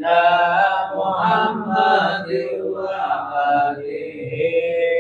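Male voices chanting a slow Arabic sholawat, a blessing on the Prophet Muhammad, holding each word as a long melodic phrase: 'sayyidina', then 'Muhammad' about two seconds in, then 'wa alihi' near the end.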